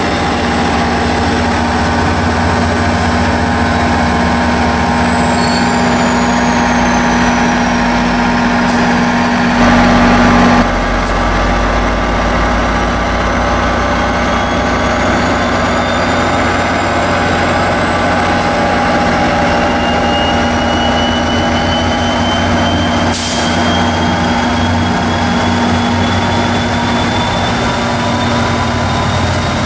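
NJ Transit GP40PH-2B diesel locomotive running steadily as it hauls its commuter train past and away. There is a brief loud burst of noise about ten seconds in, and a high whine climbs in pitch through the second half.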